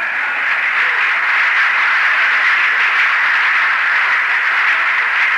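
Audience applause: dense, steady clapping that swells in just before and holds at an even level.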